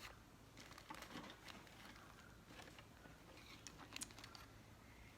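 Faint scattered small clicks and light rustles of craft supplies being handled, over a quiet room.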